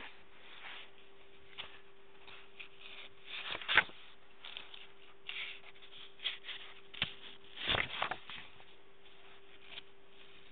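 Paper pages of a memory book being turned and handled: scattered soft rustles, with louder flips about four and eight seconds in, over a faint steady hum.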